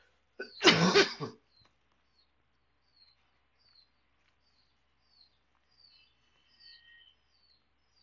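A person coughs once, about half a second in, in two quick parts. Small birds chirp faintly in the background throughout: short, high, falling chirps roughly every half second.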